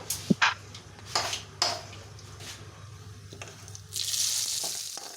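Mustard seeds, urad dal and curry leaves frying in a little hot oil for a tadka: sharp scattered pops and clicks as the mustard seeds begin to pop. Near the end a louder sizzling hiss rises for about a second, then cuts off suddenly.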